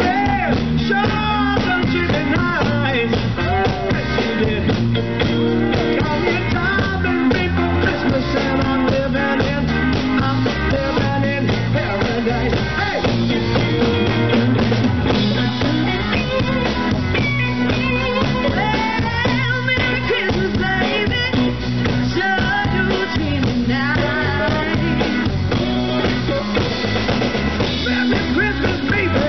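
Live blues-rock band playing: electric guitars, bass and drum kit, with a steady beat and a wavering melodic lead.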